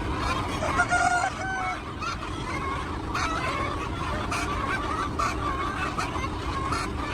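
A flock of chickens clucking and calling, many short overlapping calls, over a steady low background noise.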